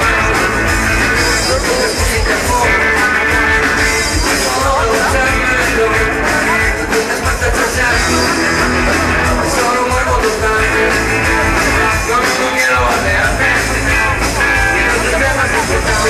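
A rock band playing live: electric guitar and drum kit, loud and steady, with a regular beat.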